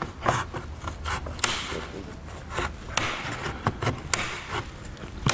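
Hand snips cutting through plastic trim: a few sharp snaps at uneven intervals, with quieter handling and rustling of the plastic in between.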